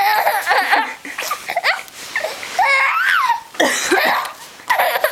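A baby of about five months laughing in a string of short, high-pitched bursts, set off by an adult's coughing just before.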